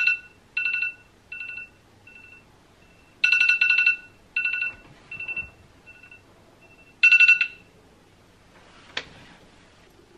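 Mobile phone ringtone. It plays a pitched phrase, a loud note followed by several fading echoes, which repeats three times about every four seconds. It then stops, and a single sharp tap with a brief rustle follows near the end.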